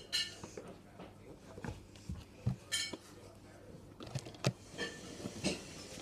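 Irregular light knocks and clicks, about ten of them, with one brief ringing clink near the middle.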